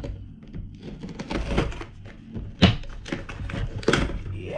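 Scissors cutting into a cardboard box, with scraping and a series of sharp clicks and knocks as the box is handled; the sharpest knock comes a little past halfway.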